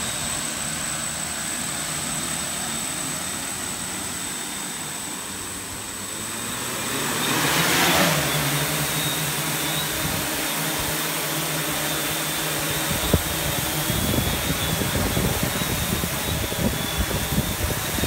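Electric motors and propellers of an X8 coaxial octocopter with T-Motor motors, first spinning steadily on the ground, then throttling up with a rising whine about seven seconds in as it lifts off, then holding a steady hover drone. In the second half, low gusty buffeting on the microphone comes and goes.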